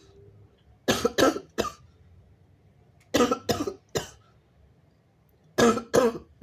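A person coughing in three short fits of about three coughs each, with pauses of a second or so between fits.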